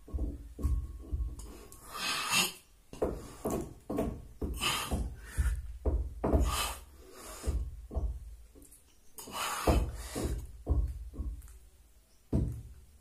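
A person doing fast push-ups on a floor: a quick, regular rhythm of hard breaths with dull thumps and rubbing, about two a second.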